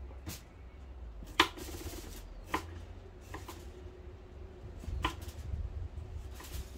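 Kitchen knife cutting a lemon on a wooden chopping board: about six sharp knocks of the blade against the board, irregularly spaced, the loudest about one and a half seconds in.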